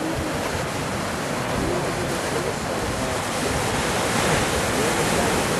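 Steady rushing of ocean surf and wind across the microphone, with faint voices talking in the background.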